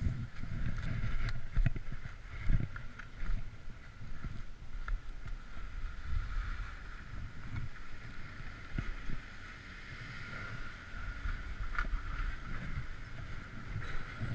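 Wind buffeting the camera microphone on a moving chairlift: an uneven low rumble under a steady high hum from the lift, with a few short clicks.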